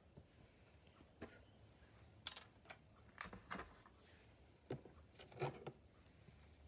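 Quiet room with a handful of faint clicks and taps from small objects handled by hand, scattered through the stretch, the loudest a little past two seconds in and again near the end.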